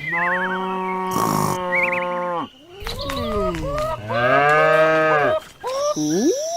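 A series of long pitched animal-like calls that glide up and down in pitch, several in a row, with shorter calls near the end.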